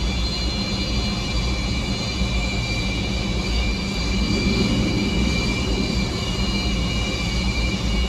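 Antonov An-124's four Progress D-18T turbofans running at taxi power: a steady low rumble under a high whine of several held tones, swelling slightly about halfway through.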